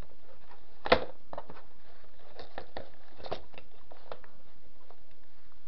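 Handling noise from a plastic computer keyboard being moved about: one sharp knock about a second in, then several lighter clicks and taps.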